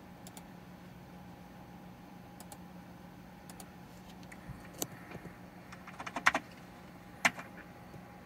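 Computer keyboard keys tapped to get into the BIOS as the PC restarts: a few single clicks, then a quick cluster of taps about six seconds in and one more near the end, over a steady low hum from the running computer.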